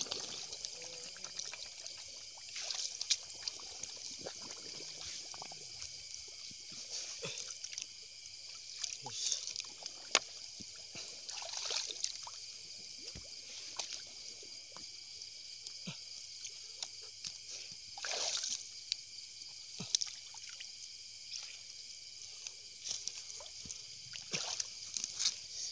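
Hands splashing and trickling in shallow, weedy lake water while picking golden apple snails, in scattered bursts with brief clicks. A steady high-pitched chorus of night insects runs underneath.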